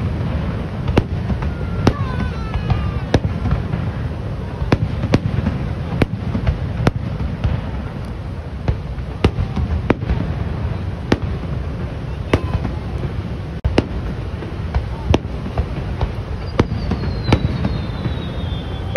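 Aerial fireworks display: sharp shell bursts going off about one and a half times a second over a steady low rumble, with a long falling whistle near the end.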